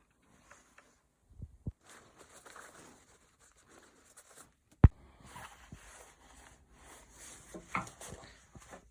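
Rustling and handling of a padded quilted jacket and its packaging, with scattered small clicks and one sharp click about five seconds in, the loudest sound.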